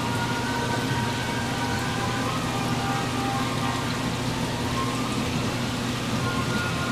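Aquarium filter or air pump running with a steady low hum, and water bubbling and splashing from its outlet.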